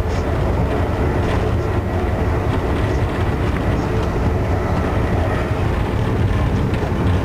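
Amtrak Northeast Regional train running at speed, heard from inside the passenger coach: a steady, loud rumble of wheels on rail and car body, with a few faint clicks.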